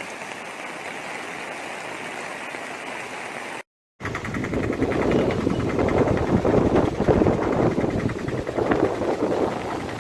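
Steady rush of flowing floodwater. About three and a half seconds in it cuts off briefly, and a louder, uneven rumbling rush follows.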